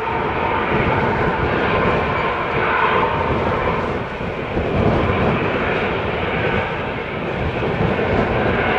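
Airbus A320-214's CFM56 turbofan engines running at taxi power as the jet rolls slowly: a steady jet rumble and hiss with a faint whine.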